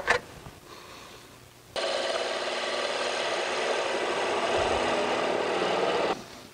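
Wood lathe spinning a square burl-wood blank while a turning tool cuts into it to form a tenon: a steady scraping, rasping cut. It starts suddenly about two seconds in and stops suddenly near the end.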